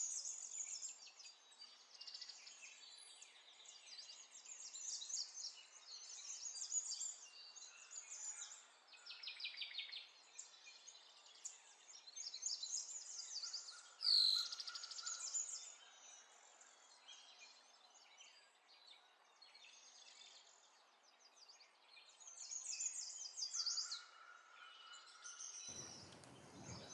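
Faint birds chirping and trilling, in short phrases with a lull past the middle.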